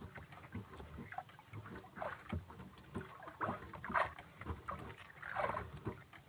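Small fishing boat on the water, with water slapping and irregular knocks and rustles on board while the line is hauled in.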